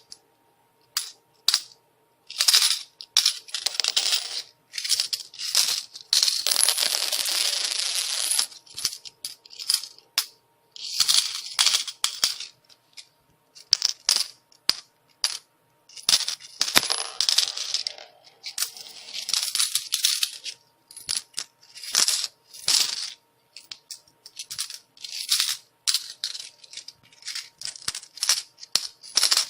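Metal coins falling and clinking, sometimes as scattered single drops and sometimes poured in runs of a second or two, starting and stopping throughout.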